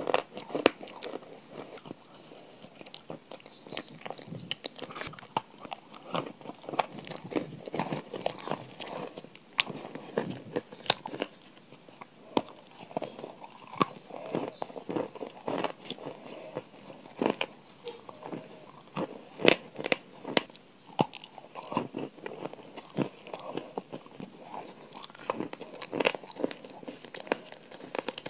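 Close-miked crunchy eating: someone biting and chewing crisp food, with many sharp, irregular crunches throughout.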